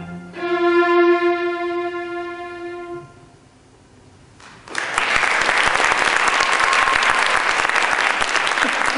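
String quartet (two violins, viola and cello) holding a final bowed note that fades away. After a brief silence, an audience breaks into applause about five seconds in.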